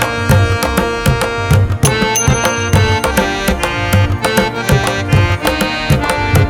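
Instrumental background music with a steady hand-drum beat under sustained melodic notes.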